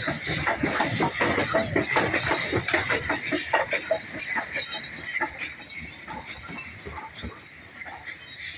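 Polish steam tank locomotive getting under way past the platform: quick rhythmic chuffs and clanks from its exhaust and motion, loudest as it passes and fading over the second half as it pulls away.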